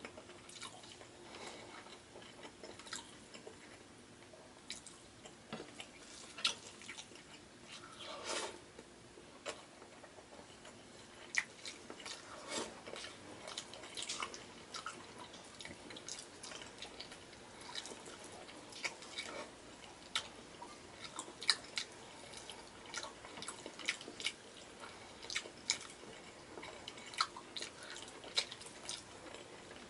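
Close-miked chewing and wet mouth smacking of a person eating soft, sauced beef stew and rice, with many irregular short smacks and clicks.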